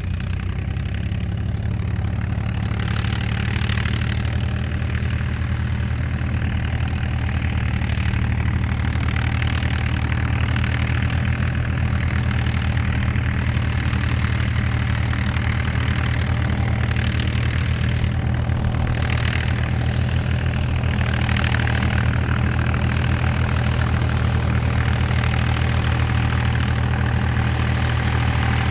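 David Brown 885 tractor's diesel engine working at a constant speed as it drives a Howard Rotavator through maize stalks, a steady low drone. Above it, a rushing noise swells and fades every few seconds, mixed with the engines of other David Brown tractors ploughing behind.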